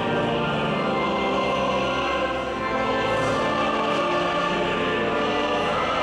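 A choir singing slow, held notes.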